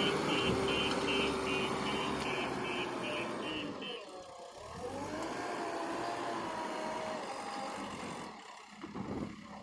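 Diesel engine of a JCB backhoe loader running, with a reversing alarm beeping about two and a half times a second for the first four seconds. The beeping then stops, and the engine pitch drops and climbs back up before holding fairly steady.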